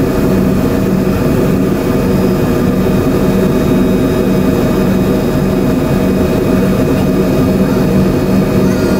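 Steady jet engine noise heard inside the cabin of an Embraer 145 regional jet, from its rear-mounted Rolls-Royce AE 3007 turbofans. It is a loud, even roar with a constant low hum of several tones.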